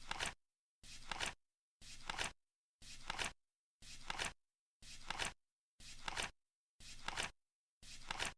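Flip clock counting down, flipping once a second: each flip is a short rustle that ends in a sharper click.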